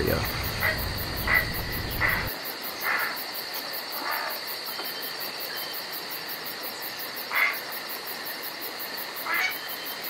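Outdoor nature ambience: a steady, high insect drone with about seven short calls scattered through, closer together in the first few seconds. A low rumble underneath cuts off about two seconds in.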